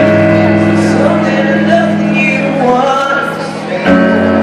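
Live music from a concert sound check: a male singer's voice sings over sustained instrumental chords. The chords change about four seconds in.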